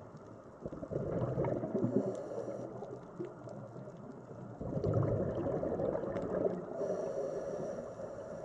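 Scuba diver's exhaled breath bubbling out through the regulator, heard from inside the underwater camera housing: two long bursts of bubbling, one about a second in and one about halfway through, each trailing a faint hiss.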